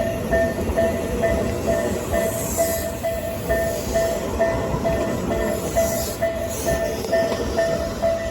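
Tobu 8000-series electric train running past, its wheels rumbling on the rails, while a Japanese level-crossing warning bell rings steadily about twice a second.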